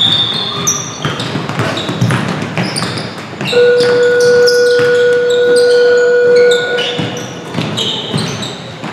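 Basketball being dribbled on a hardwood gym floor with sneakers squeaking. A steady horn-like buzzer tone sounds for about three seconds in the middle.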